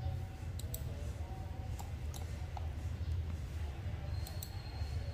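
Computer mouse clicking a few times, a pair of clicks, then single clicks, then another pair near the end, over a steady low hum. A faint high whine comes in near the end.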